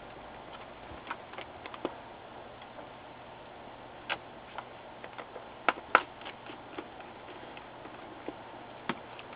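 Scattered light clicks and taps of a small precision Phillips screwdriver and tiny screws against a laptop's backlight inverter board and its plastic frame, as the board is screwed back in place. The sharpest pair of clicks comes about six seconds in.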